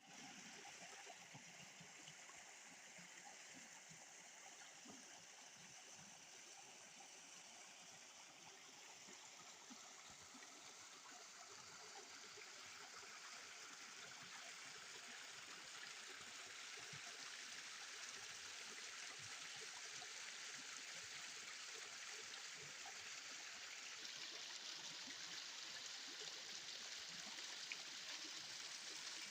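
Waterfall water rushing, a faint, steady hiss that slowly grows louder.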